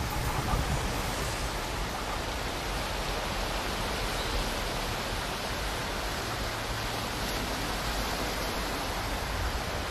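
Surf breaking and washing on the rocky shore, a steady rushing noise, with a low, uneven rumble of wind on the microphone.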